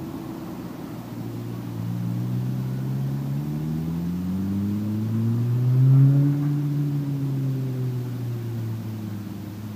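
Motorcycle-with-sidecar engine running in the distance, its pitch climbing steadily as it accelerates. It is loudest about six seconds in, then the pitch eases down and the sound fades as it rides away.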